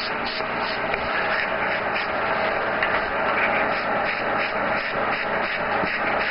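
Airbrush spraying paint: a steady hiss of compressed air.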